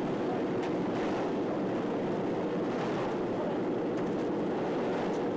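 Steady drone of a propeller aircraft's engine mixed with rushing wind through the open jump door, at an even level.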